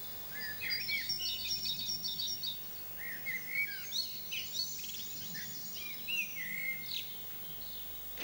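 Songbirds singing: a steady run of quick chirps and twittering trill phrases, several overlapping, over a faint outdoor background.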